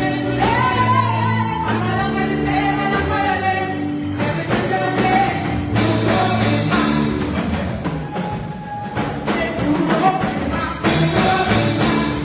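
Gospel praise singing with a backing band: voices singing over bass and a steady drum beat.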